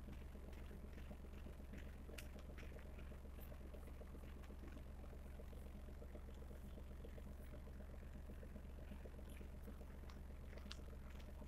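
A steady low hum, with faint scattered clicks and crackles over it.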